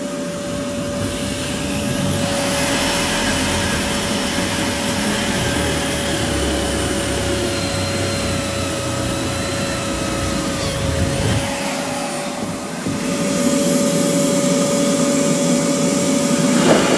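A steady machine noise with a constant whine running through it, starting and stopping abruptly. The deep rumble underneath drops away about two-thirds of the way through.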